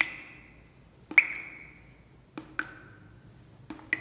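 Bright bell-like pings: several sharp strikes, some in quick pairs, coming about every second and a quarter, each ringing out with a high tone for most of a second.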